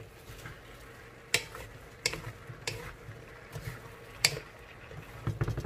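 Wooden spatula stirring chayote and bottle gourd (upo) pieces in an aluminium wok, with a few sharp knocks of the spatula against the pan.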